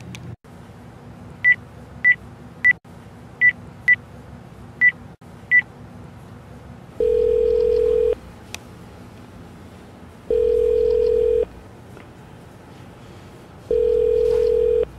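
Phone keypad beeping seven times as a number is dialed, then three ringback tones, each about a second long with pauses between, as the call rings through.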